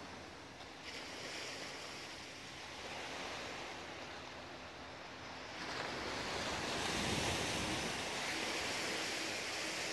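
Steady rushing of small sea waves washing at the foot of a sea wall, with wind, swelling louder about six seconds in.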